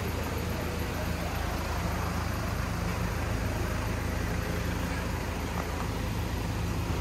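A vehicle running steadily: an even low engine hum with a faint hiss over it.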